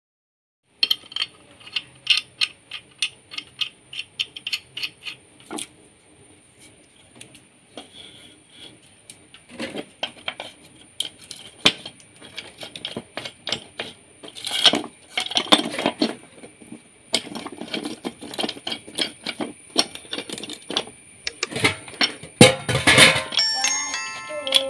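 Sharp metallic clicks, taps and clinks of steel brackets, bolts and a screwdriver being worked on a wooden bar, at first about three a second, then in irregular clusters, with a faint high steady whine behind. Near the end a short run of stepped chime tones sounds, a notification jingle.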